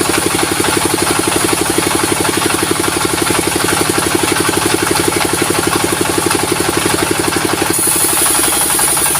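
Sawmill diesel engine running steadily with a rapid, even beat. Near the end the beat fades and a high hiss grows louder.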